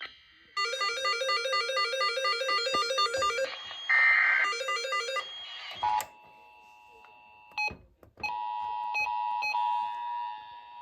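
Emergency Alert System tones: a buzzy, rapidly warbling electronic data burst lasting about three seconds, then shorter bursts and blips. About eight seconds in, a steady two-tone attention signal begins and holds.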